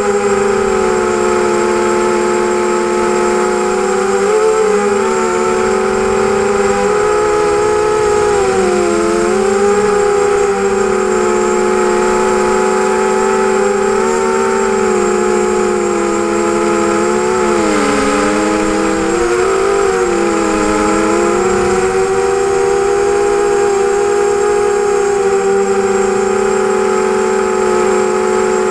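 ZMR250 quadcopter's brushless motors and propellers whining in flight, as heard from the onboard camera: several steady tones that dip and recover together as the throttle changes, most deeply about eighteen seconds in.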